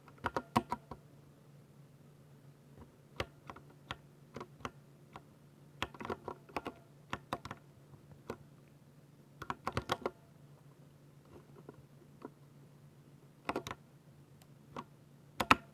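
Typing on a 60% mechanical keyboard with silver switches: sharp keystroke clicks in quick irregular bursts of a few keys, separated by short pauses.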